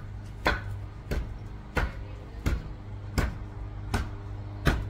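Evenly spaced knocks, about three every two seconds, over a steady low hum.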